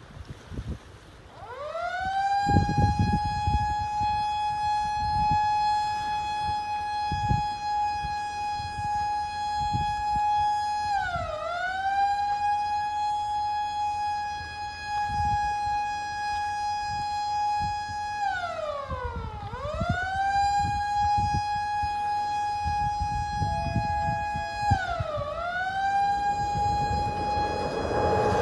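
Lifeboat station's launch warning siren: a siren winding up about a second and a half in to one steady high wail, then dipping in pitch and winding back up three times. Wind buffets the microphone throughout, and near the end a rushing noise builds as the lifeboat comes out of the boathouse onto the slipway.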